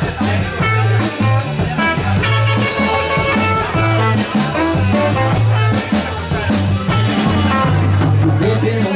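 Live blues band playing an instrumental passage: electric guitar, electric bass and drum kit with a steady beat, and a tenor saxophone in the band.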